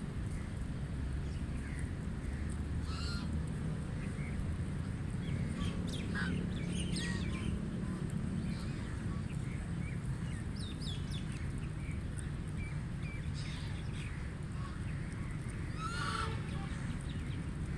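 White ducks quacking now and then, with short calls scattered through, over a steady low background rumble.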